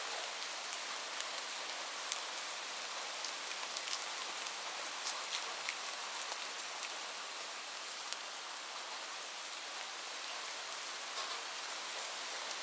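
Steady rain on a roof: an even hiss, with single drops ticking sharply here and there.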